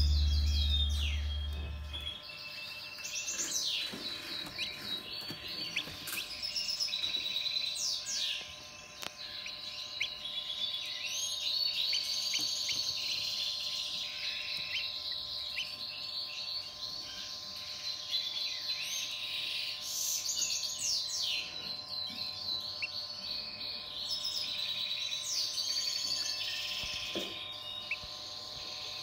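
Newly hatched Brahma chicks peeping: many short, high chirps repeated over a faint steady hum.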